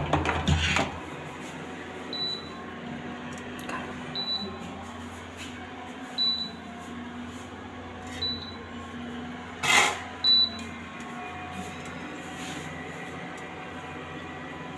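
A glass-top electric cooktop, likely induction, gives short high beeps about every two seconds over a steady low hum. A few knocks of a pan or utensil come through, the loudest about ten seconds in.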